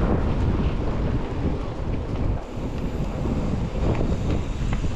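Wind buffeting the microphone: a heavy, steady low rumble.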